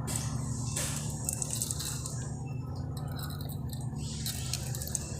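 Faint light clinks and ticks of small metal engine parts being handled over a steady low hum.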